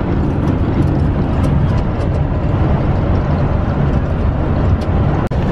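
Steady road noise inside a vehicle's cabin at motorway speed: a low engine and tyre rumble with a hiss over it, briefly cutting out near the end.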